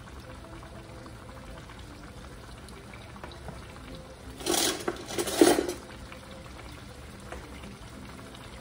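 Sliced tomatoes and onions sizzling softly in a frying pan. Two brief, loud rushes of noise come about halfway through.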